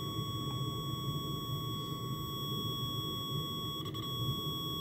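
Multimeter continuity beeper sounding a steady, unbroken tone while the probe tips are held in contact, with no crackle or dropouts: a clean, oxide-free connection.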